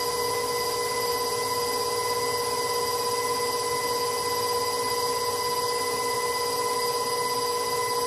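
Electric stand mixer running at one steady speed, its motor giving a steady whine while it beats peanut butter cookie batter with eggs, sugars and vanilla in a glass bowl.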